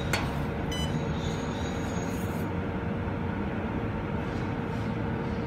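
Steady mechanical running noise with a steady hum. A single sharp click comes just after the start.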